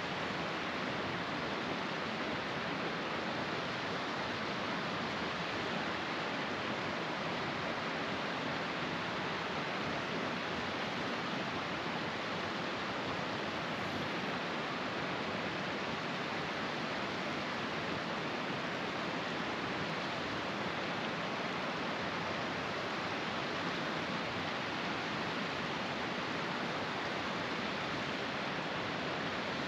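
Steady rushing of a mountain creek spilling down over rocks, an even hiss that does not change.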